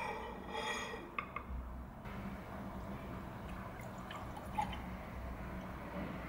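A plate set down on a glass-topped counter with a couple of light clinks, then milk poured from a carton into a drinking glass, a steady splashing stream as the glass fills.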